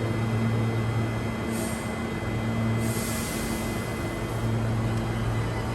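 Brisbane electric passenger train running with a steady low hum and a thin high whine, broken twice by short bursts of hiss.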